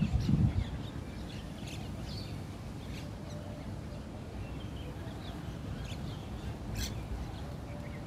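Small birds chirping in scattered short, falling notes, over wind buffeting the microphone that gusts in the first second.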